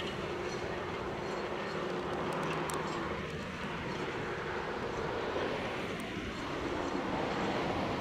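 John Deere 7830 tractor's six-cylinder diesel engine running steadily under load while pulling a five-furrow plough through the soil.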